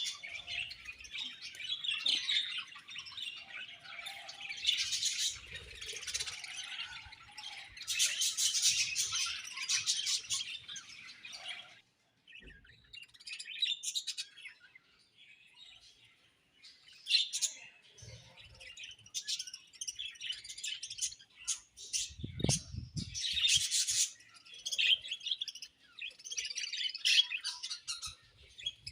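Budgerigars chirping together in a dense chatter of high calls, which breaks off about twelve seconds in and comes back as sparser bursts of chirps.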